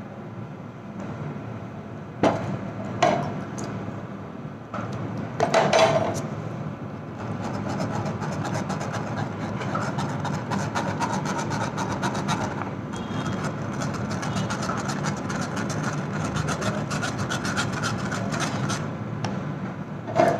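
A few sharp knocks, then a wire whisk scraping rapidly and steadily against a stainless steel mesh strainer as thick pumpkin puree is worked through it, starting about seven seconds in.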